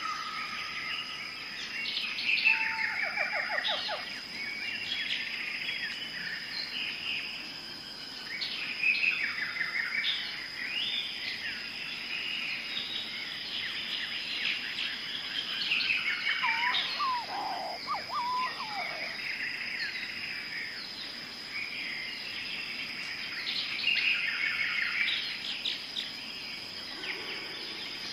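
Weaver birds chattering: many overlapping buzzy calls and trills, with a steady high insect drone underneath.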